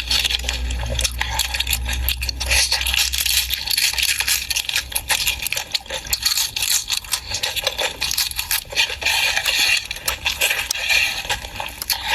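Close-miked mukbang eating sounds: pork being chewed, with dense crackling, crunching clicks and some scraping.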